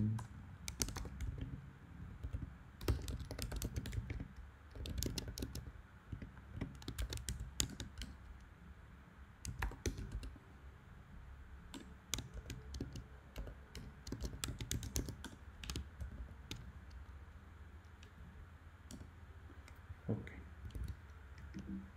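Typing on a computer keyboard: irregular bursts of quick keystrokes that thin out to a few scattered taps in the last several seconds.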